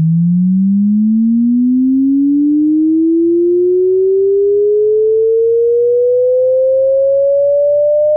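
A computer-generated pure sine tone, played back by MATLAB's audioplayer through the sound card, sweeping smoothly and steadily upward in pitch from a low hum to a mid tone.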